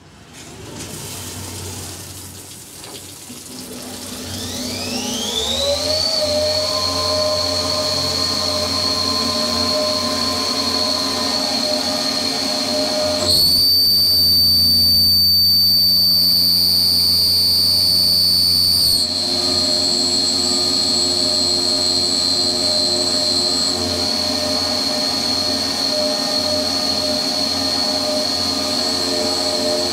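Flex long-bed CNC mill spindle spinning up with a rising whine a few seconds in, then running steadily with flood coolant hissing as an end mill cuts a keyway in a shaft. From about 13 to 19 seconds the whine is louder and slightly higher.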